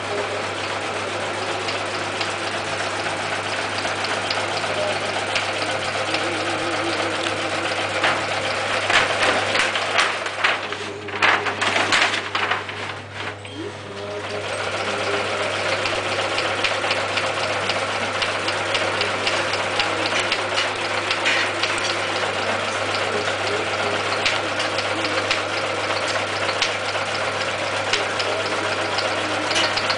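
Long-arm industrial zigzag sail-making sewing machine stitching sailcloth, its needle running at a steady rapid rate over a constant motor hum. Near the middle it turns louder and more irregular and dips briefly, then runs steadily again.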